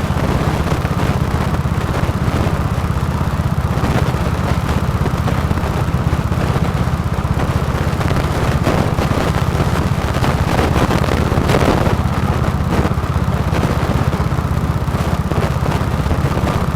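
Go-kart engine running steadily and loudly, a continuous low drone with no pauses.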